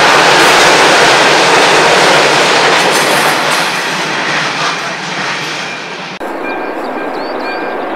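Loaded freight wagons rolling past on the rails, a dense rumble and clatter of wheels that fades as the last wagons pass. About six seconds in it drops suddenly to a quieter background with birds chirping.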